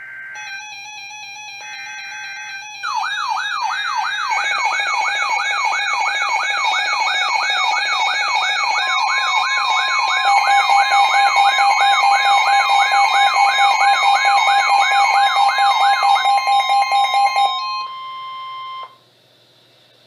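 Several NOAA weather alert radios going off together for a severe thunderstorm warning. It opens with a few seconds of buzzy coded data bursts, the alert's SAME header, then overlapping electronic alarms: a fast warbling siren, steady beeping tones and a long steady alert tone. All of it cuts off about eighteen seconds in.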